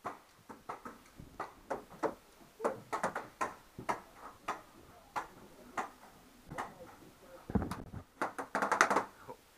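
Paintball fire: irregular sharp pops and cracks, with a dull thump about seven and a half seconds in and a quick run of pops just after it.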